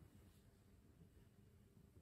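Very faint, low purring of a tabby-and-white cat lying on a person's chest while being stroked.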